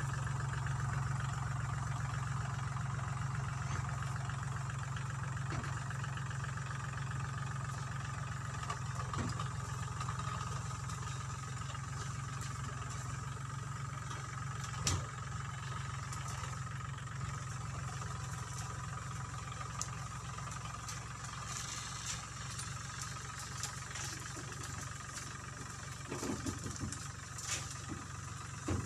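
Compact farm tractor's engine running steadily as it pulls a trailer, gradually fading as it drives away. A single sharp crack about halfway through, and a few light clicks near the end.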